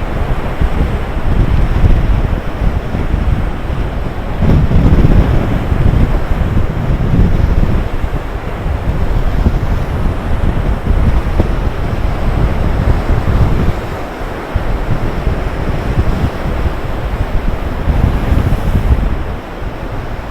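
Storm surf breaking on a rocky coast under strong gusting wind, the wind buffeting the microphone with a heavy low rumble that rises and falls.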